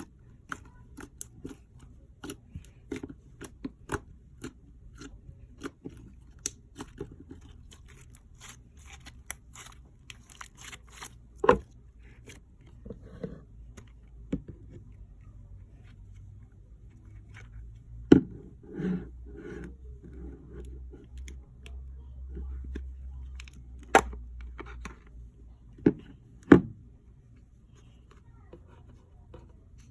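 Slime being squished and stretched by hand, giving quick little crackles and pops for the first dozen seconds, then fewer, with a few sharp knocks.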